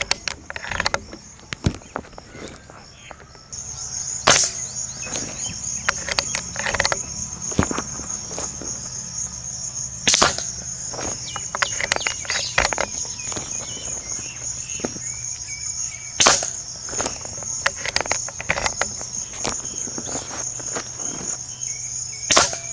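Regulated Diana Stormrider Gen3 PCP air rifle fired four times, about six seconds apart, each a sharp crack, with lighter mechanical clicks between the shots as it is cycled and reloaded. A steady high-pitched insect chirr of crickets runs under it, growing louder a few seconds in.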